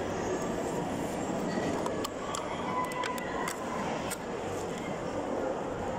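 Steady murmur of a crowd's background chatter in a large hall. A few sharp clicks and clinks fall in the middle.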